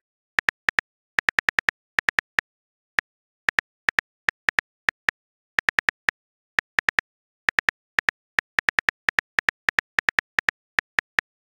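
Phone keyboard typing sound effect: quick taps, each a short crisp click, coming in uneven runs of two to five with brief pauses between.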